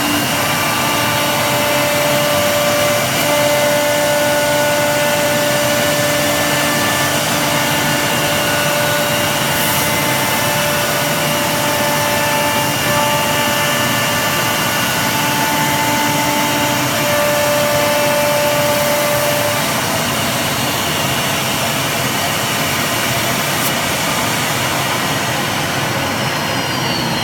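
A 1325 CNC wood router running, its spindles giving a steady high whine of several tones over a loud, even hiss of machine noise. Some of the tones drop out about two-thirds of the way through.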